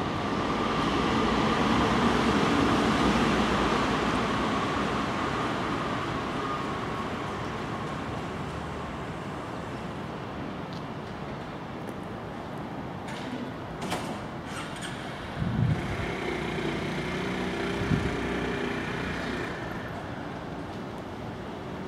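Passing traffic: a rumble that swells to a peak about two to three seconds in, carrying a faint whine, then slowly fades. A few light knocks and a short thump follow further on.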